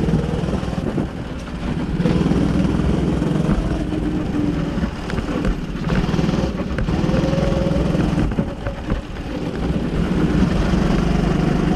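Go-kart engine running under the driver, its note rising and falling as the throttle is opened and eased off through the bends.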